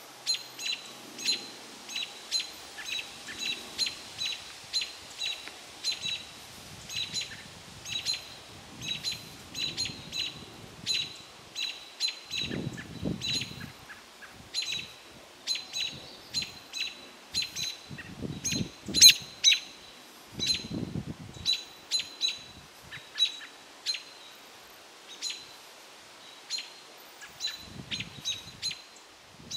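American robins giving sharp, high alarm calls, repeated about twice a second, mobbing a great gray owl in their territory.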